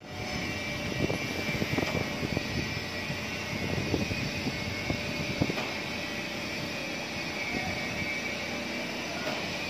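Mobile crane's diesel engine running steadily under load as it lifts a steel truss, with a steady high whine and a few light knocks.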